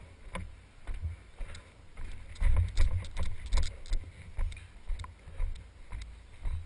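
Wind buffeting a head-mounted camera's microphone in uneven low gusts, with footsteps about twice a second on wooden decking and then concrete.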